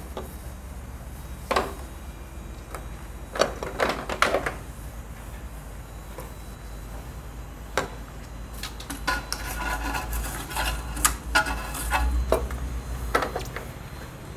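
Wet cloth and sponge wiping and scrubbing the plastic housing of a water dispenser: scattered knocks and taps against the plastic, and a busier stretch of rubbing about two thirds of the way in, over a steady low hum.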